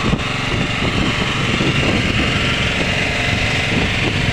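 Small engine running steadily at an even pitch.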